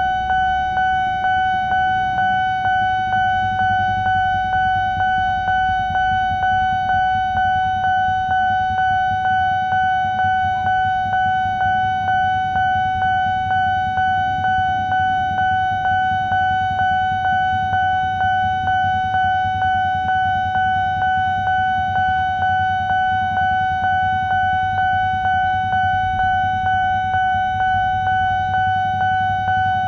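Railway level-crossing warning bell ringing steadily: one high tone struck about twice a second, each stroke fading into the next. It is the crossing's signal that a train is approaching and the barrier is down.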